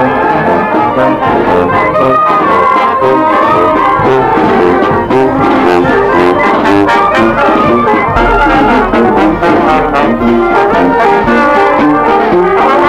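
Youth brass band playing while marching: trombones and trumpets carry the tune over a sousaphone bass line, with bass drum and clash cymbals keeping a steady beat.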